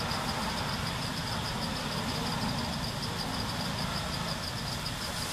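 Steady outdoor ambience: a high, rapidly pulsing insect buzz over a low, continuous rumble.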